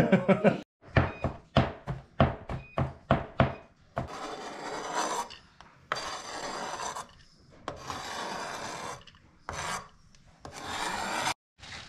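Chef's knife mincing garlic on a plastic cutting board: a quick run of sharp taps, then from about four seconds in, several long scrapes of the blade across the board gathering up the minced garlic.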